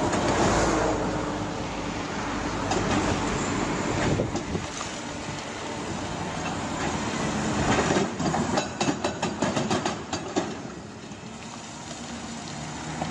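Excavator at work: its engine runs under a continuous rough scraping noise. About two-thirds of the way through comes a run of rapid metallic clanks and knocks.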